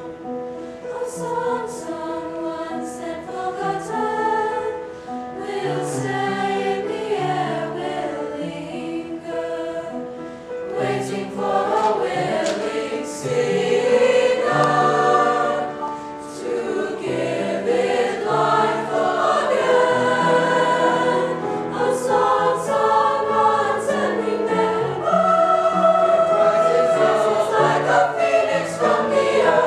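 Eighth-grade mixed-voice choir of boys and girls singing a piece in several parts at once, growing louder about halfway through.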